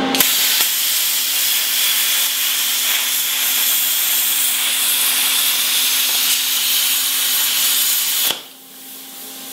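Handheld plasma cutter cutting through a steel pipe ring: a loud, steady hiss of the arc and air jet starts just after the beginning and cuts off suddenly about eight seconds in, over a steady low hum.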